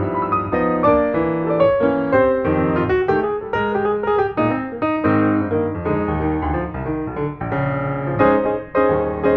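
Background music: solo piano playing a flowing melody of many notes.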